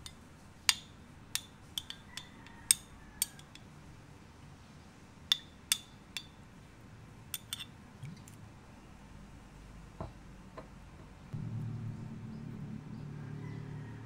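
A metal spoon clinks against a glass bowl and the necks of sauce bottles: about a dozen sharp, ringing clinks in the first eight seconds, then a couple of softer knocks. About 11 seconds in, a low steady hum starts and keeps going.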